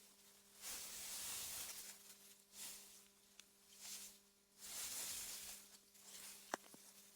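Wind through meadow grass, a soft hiss that swells and fades in several gusts, over a faint steady low hum. A single sharp click sounds near the end.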